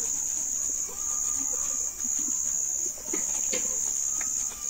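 An insect trilling steadily at a high pitch, in long stretches broken by short pauses about once a second. Faint rubbing of a soapy cloth scrubber on skin underneath.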